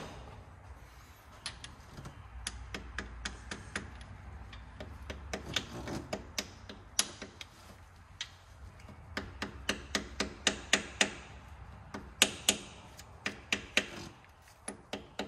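Soft-face mallet tapping a socket held against a new camshaft seal in a Nissan RB25DET cylinder head, driving the seal in flush. The taps are sharp and come in short runs of a few a second, with brief pauses between runs.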